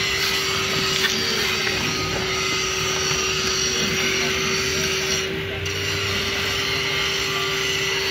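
Steady machine hum, a constant mid-pitched tone over an even hiss, with no strokes or breaks.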